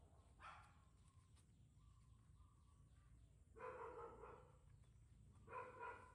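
Baby macaque giving short, soft high-pitched calls three times: about half a second in, at about three and a half seconds, and just before the end.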